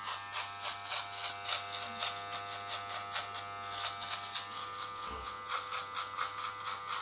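Corded electric hair clippers buzzing steadily as they cut a man's hair, the sound swelling and dipping in a regular pulse a few times a second.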